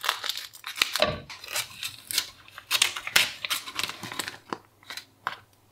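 Scissors cutting open a vacuum-sealed plastic pack of bacon: a run of sharp snips, with the plastic film crinkling between them, stopping about five seconds in.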